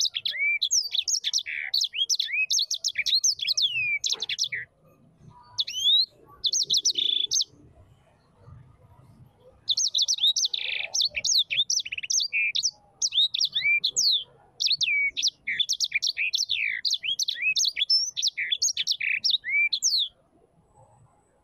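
A bird singing a long, rapid run of varied chirps and whistling sweeps, breaking off for a few seconds partway through and stopping near the end.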